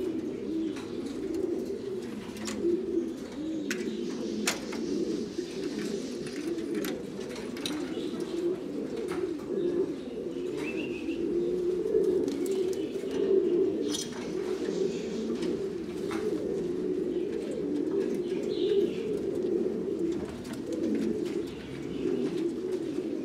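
Buchón gaditano pouter pigeons cooing without a break, a low warbling coo that runs on through, with scattered sharp clicks.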